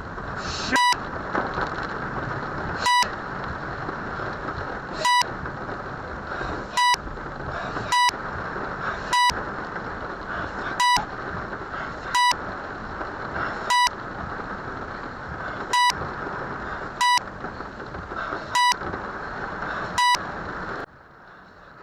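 About a dozen short, identical censor bleeps at uneven intervals, each blotting out a spoken word (the driver's swearing), over a steady rushing noise of rain and water around the car. The rushing noise cuts off abruptly near the end.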